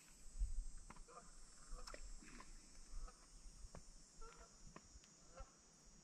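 Faint, short waterfowl calls repeated every half second to a second, over a steady high-pitched buzz, with a few faint clicks.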